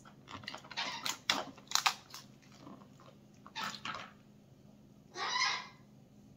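Close-up eating sounds of steamed crab: wet chewing and lip-smacking with sharp little clicks of shell, and a longer slurp about five seconds in as the roe is sucked from the shell.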